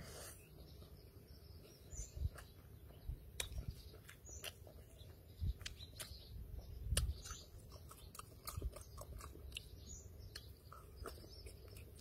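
A person chewing and slurping a mouthful of instant noodles, with many wet clicks and smacks of the mouth and soft irregular thumps.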